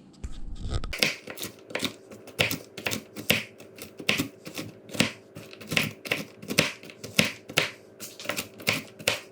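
Kitchen knife chopping walnuts on a cutting board, sharp knocks about two to three a second starting about a second in.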